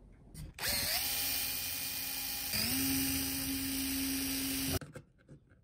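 Electric drill drilling out the rivets that hold a tube socket to an amplifier chassis. The motor spins up, dips and speeds up again about halfway through, runs steadily, then stops suddenly near the end.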